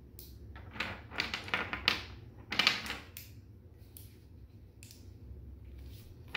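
Magnetic construction sticks and steel connector balls clicking together as they are handled and snapped into place, a quick run of clicks about one to three seconds in, then a few more sparse clicks.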